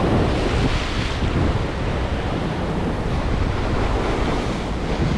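Sea swell breaking and washing over the rocks below in a steady rush, with wind buffeting the microphone.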